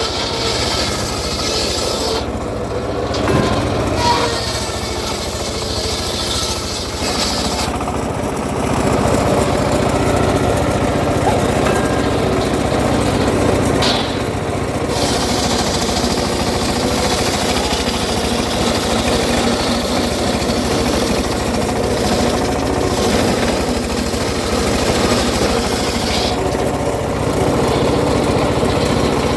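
An engine-driven saw running steadily while cutting acacia wood. The high part of the sound drops out and comes back several times as the load on the blade changes, and it gets louder about eight seconds in.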